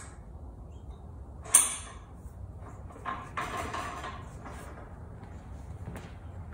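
Lower handle being fitted to a steel vertical climber frame: a sharp metal click with a short ring about one and a half seconds in as its spring-loaded pin snaps into place, then a couple of seconds of sliding and rubbing, and a small click near the end.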